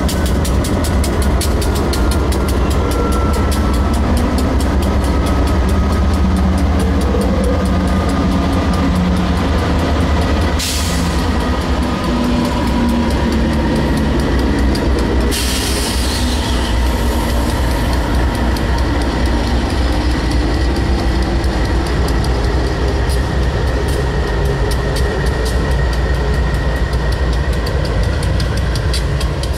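CSX freight train rolling by with a steady, loud rumble of rail cars and diesel locomotives, with a faint high tone sliding slowly down early on. Two short noisy bursts come midway.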